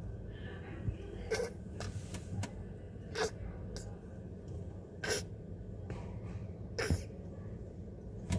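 A sleeping newborn baby's short, noisy breaths, four of them evenly spaced about two seconds apart, over a low steady hum.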